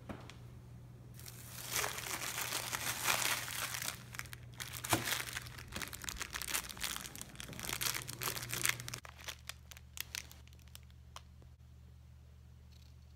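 Cellophane wrapper of a fortune cookie being crinkled and torn open by hand, a dense crackling for about eight seconds that stops suddenly, followed by a few faint crackles.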